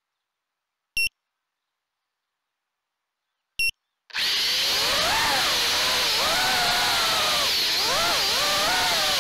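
Two short electronic beeps. About four seconds in, the brushless motors and propellers of a Diatone Rabbit GT R349 3-inch FPV quadcopter spin up into a whine whose pitch rises and falls with the throttle, heard through the quad's onboard camera.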